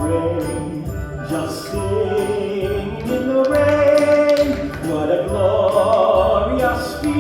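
A voice singing a show tune with held, gliding notes over instrumental accompaniment with a bass line and a steady beat.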